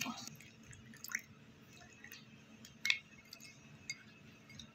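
Metal spoon stirring a wet spice paste in a glass bowl: soft squishy scraping with a few sharp clinks of the spoon against the glass, the loudest about three seconds in.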